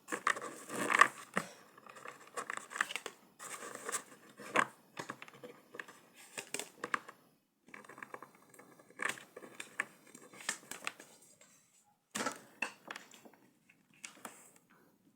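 Oracle cards being handled and shuffled by hand: irregular rustling, sliding and light card-on-card clicks, with short pauses.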